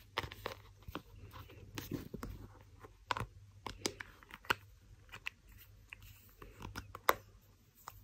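Scattered small clicks, taps and rubbing as an iPhone XS is handled and pressed into a phone case, with a few sharper clicks along the way.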